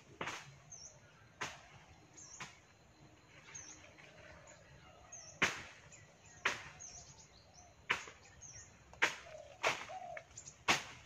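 A sharpened machete chopping and slashing at branches, irregular sharp strikes every second or two. Small birds chirp faintly in the background.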